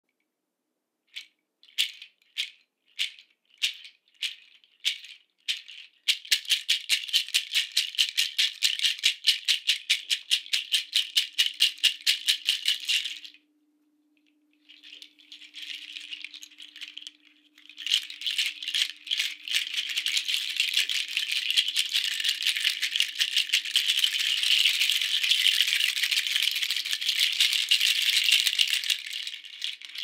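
Cha cha shaker, a cluster of dried Amazonian seed pods strung on a cord, rattling. It starts with separate single shakes, a bit more than one a second, then changes to fast, even shaking. It stops about 13 seconds in, comes back as a softer rattle, and ends in a long, dense, continuous rattle.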